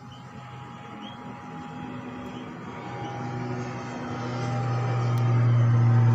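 An engine running with a steady, unchanging low hum that grows louder, loudest near the end; a few faint bird chirps in the first couple of seconds.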